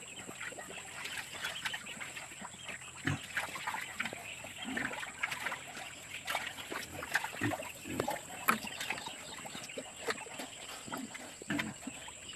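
Pigs grunting and giving short, irregular calls at a small backyard pig farm, with a faint steady high-pitched whine underneath.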